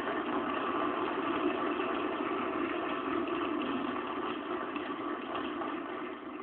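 Audience applauding: a steady clatter of clapping that dies down near the end.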